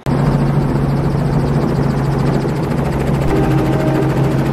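Robinson R44 helicopter in flight heard from inside the cabin: its six-cylinder piston engine and rotor make a loud, steady drone with a low hum and a fast, even rotor beat.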